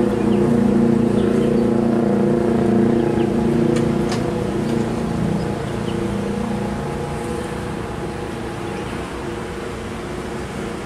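A steady engine hum made of several held tones, easing off slightly in the second half.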